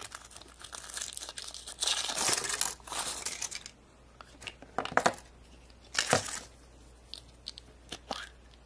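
Foil wrapper crinkling and tearing as it is peeled off a chocolate surprise egg, then two sharp snaps as the chocolate shell is cracked apart, and a few small clicks from the plastic toy capsule inside near the end.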